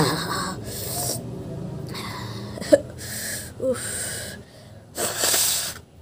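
A woman's breathy sniffs and wheezy gasps through the nose, about six in a row, as she tickles her nose trying to sneeze; no sneeze comes. The first is the loudest, and a longer one near the end goes into a handkerchief held at her nose.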